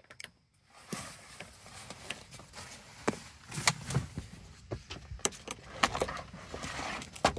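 Scattered, irregular clicks and knocks of hand tools and metal and plastic parts being handled at the seat-mounting bolts on a van's carpeted floor, with some rustling near the end.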